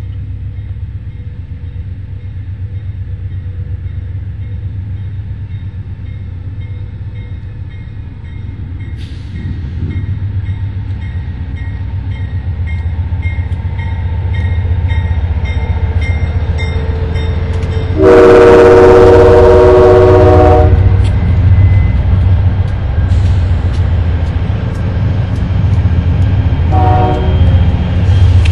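Amtrak Genesis diesel locomotive approaching and passing close, its engine rumble growing steadily louder. Its horn sounds one long blast about two-thirds of the way through, the loudest sound, and a short toot near the end.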